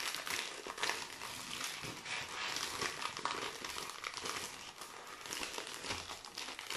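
Clear plastic wrapping of a trading-card multipack crinkling and crackling without a break as it is pulled open by hand.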